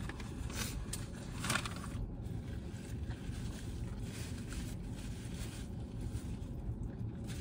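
Steady low rumble inside a car cabin, with soft rustling and a brief crinkle of a foil sandwich wrapper about one and a half seconds in.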